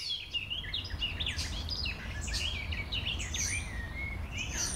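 Several small birds chirping and singing in a rapid jumble of short high calls and quick pitch slides, with a steady low rumble underneath.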